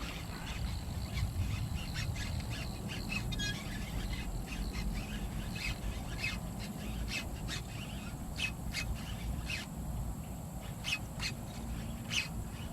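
Birds chirping, many short calls scattered irregularly, over a steady low rumble.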